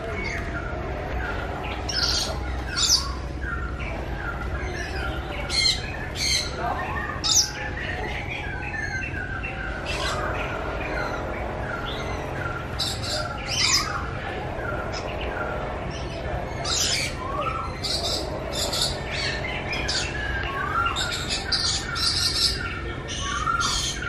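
Many birds chirping and calling over one another in a continuous chatter of short chirps. Frequent sharp, high-pitched calls stand out above it.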